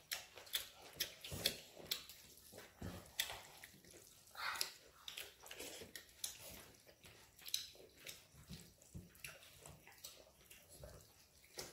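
People eating rice and curry with their hands: wet, sticky squelches of mixing and scooping food, with mouth smacks and chewing clicks, irregular and several a second.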